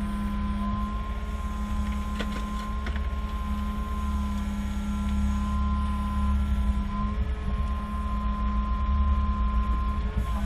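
Engine running steadily with a constant whine over a low rumble, and a few light clicks about two to three seconds in.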